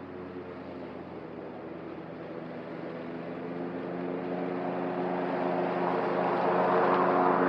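Cub Cadet ZTS1 zero-turn riding mower running steadily at mowing speed, growing steadily louder as it drives toward the listener.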